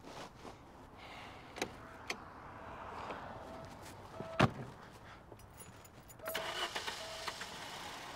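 A car door slams shut with a sharp thud about halfway through, among lighter clicks and handling sounds. Near the end comes a short stretch of rushing, crackling noise.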